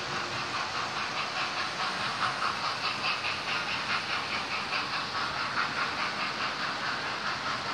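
Model electric trains running on a layout: a steady whirring hiss with a quick rhythmic clicking as the wheels run over the track. It is loudest in the middle, as a long rake of coaches passes close by.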